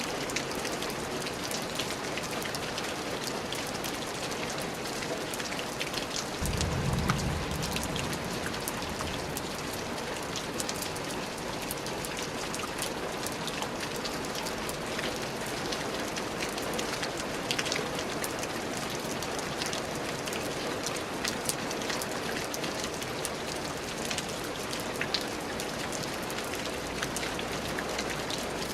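Steady rain falling on a surface, with many individual drops ticking through the hiss. About six seconds in, a brief low rumble rises under the rain for a second or two.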